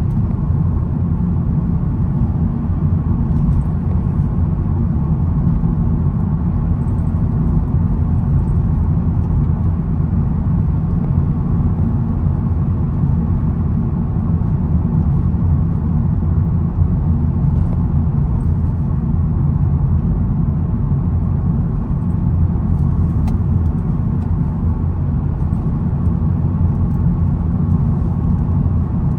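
A 2022 SEAT Ibiza FR being driven: a steady low rumble of engine and road noise that holds even throughout.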